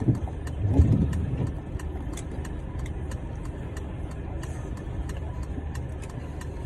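A steady low hum with scattered light clicks and a brief louder bump about a second in.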